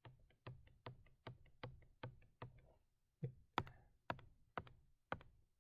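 Repeated sharp clicks on a computer, about two to three a second with a brief pause partway through, as the undo command is pressed again and again.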